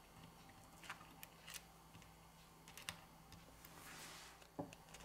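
Faint scattered clicks and taps, about five, as small smartphone parts (a metal bracket, a flex connector, the battery) are handled and pressed into place on the phone's frame. The loudest click comes near the end, and a brief soft rubbing sound comes just before it.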